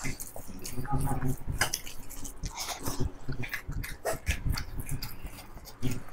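People eating rice and curry by hand from plates: repeated small clicks and taps as fingers work the food on the plates, with chewing and mouth noises.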